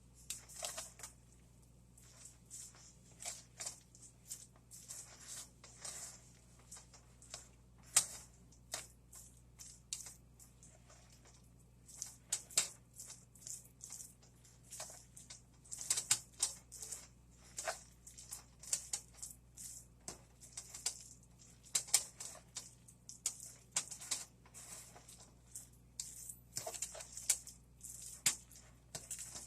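A spoon scraping and clicking against a bowl as chicken salad is stirred: short, irregular scrapes, about one or two a second.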